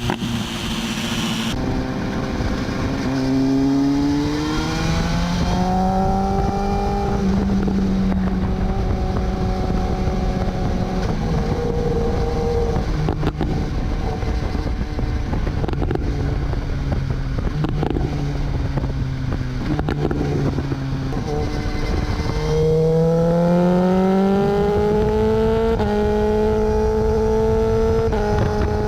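BMW S1000R's inline four-cylinder engine on an aftermarket slip-on exhaust, accelerating. Its pitch climbs over a few seconds, holds steady, drops back, then climbs again about two-thirds of the way through.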